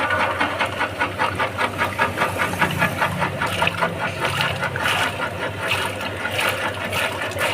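Peanut skin-peeling machine running with a fast, even rattle over a steady motor hum.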